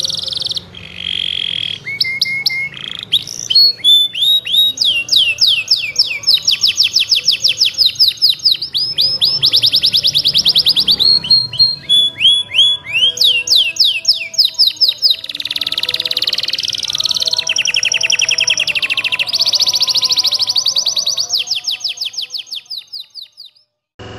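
Domestic canary singing a long, loud song of very fast repeated trills: rapid runs of chirps with a short break about halfway through. The song fades out near the end.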